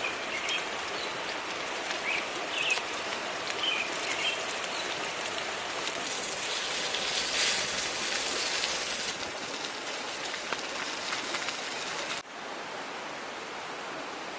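Pork belly sizzling over a campfire: a steady hiss with small pops, and a few short bird chirps in the first few seconds. Near the end the sound cuts abruptly to a quieter, steadier hiss.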